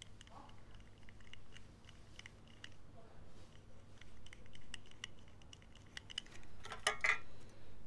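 Soft lens brush sweeping over the rear of a Canon 135mm f3.5 FD lens to clear dust, with light scratchy clicks and handling taps. A louder rustle comes near the end.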